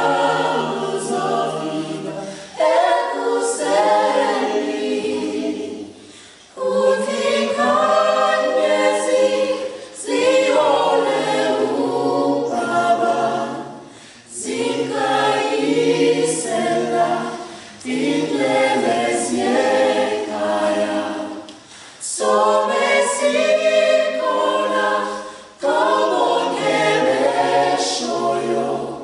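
Choir of men's and women's voices singing a cappella, in phrases of about four seconds with a short break between each.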